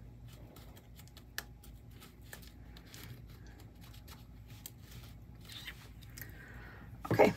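Faint scratching of a felt-tip marker drawn across fabric as it traces around a thread cone, with light taps and handling clicks, one sharper click a little over a second in. A short, louder rustle comes near the end.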